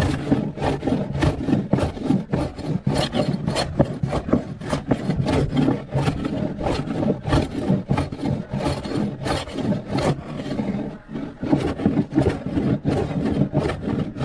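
Wood being worked by hand in quick, repeated back-and-forth strokes, a rasping, rubbing sound, a few strokes a second.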